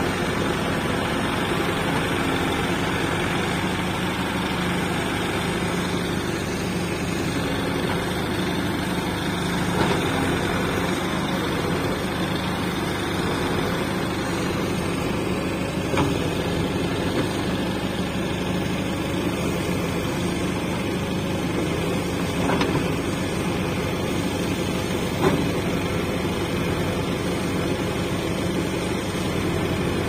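Diesel engine of a backhoe loader running steadily while it digs, with a few brief knocks.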